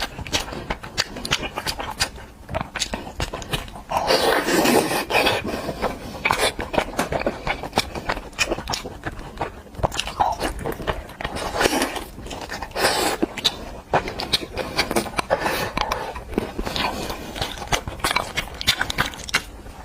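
A person eating close to the microphone: irregular wet chewing, smacking and crunching clicks, louder in a few bursts.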